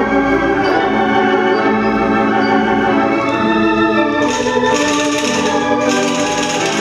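Restored theatre pipe organ playing sustained, shifting chords with a low bass underneath. From about four seconds in, a bright high shimmer comes and goes over the chords.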